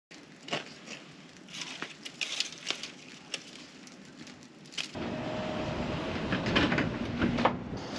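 Wood campfire crackling, with scattered sharp pops. About five seconds in it cuts abruptly to a louder, steady rushing noise with a few knocks and clatters.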